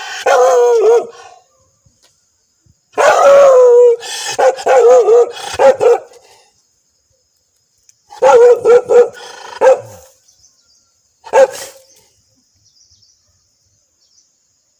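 A dog barking aggressively in repeated bursts: a short run of barks at the start, longer runs of rapid barks around three and eight seconds in, and one short bark a little after eleven seconds.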